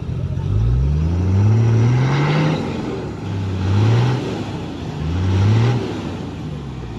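Land Cruiser engine revving under load three times as it tows a stuck vehicle out of mud on a strap. The first rev climbs for about two seconds, and the next two are shorter.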